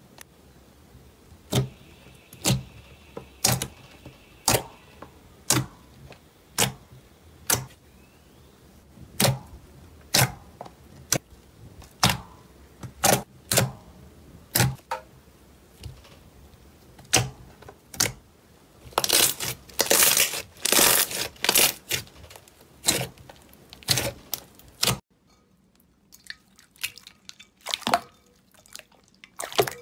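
Crunchy slime being pressed and squeezed by hand, making sharp pops and crackles about once a second. A rapid flurry of pops comes about two-thirds of the way through, followed by a quieter stretch with only a few faint pops.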